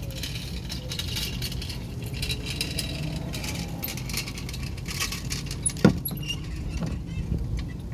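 Engine oil draining from a Honda Navi's loosened drain plug into a catch pan, a crackling, pattering trickle, with one sharp metallic click about six seconds in.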